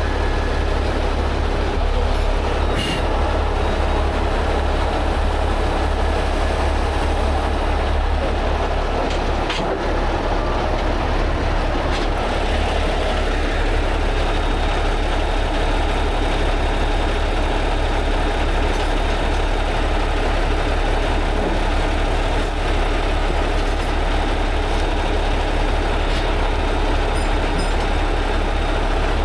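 Diesel engine of a heavy rotator tow truck idling steadily, a deep even rumble, with a few light clicks.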